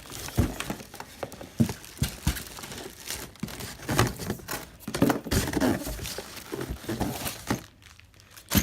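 Plastic packaging crinkling and rustling as it is handled and pulled open, with irregular taps and knocks of the contents, and a sharper knock near the end.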